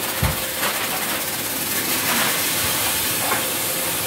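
Steady hissing noise with a faint steady hum, and a few light knocks and clicks.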